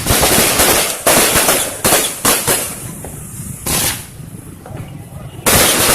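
Fireworks and firecrackers going off: a run of sharp bangs about a second apart, then a loud dense crackle near the end.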